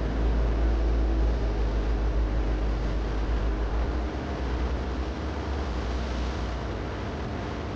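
Wind buffeting an open-air microphone: an uneven low rumble over a steady hiss, strongest in the first few seconds and easing off after.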